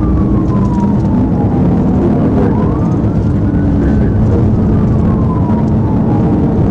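Police siren wailing in slow sweeps that fall and rise, about a full cycle every four seconds, over loud, steady road and engine rumble from a patrol car in pursuit.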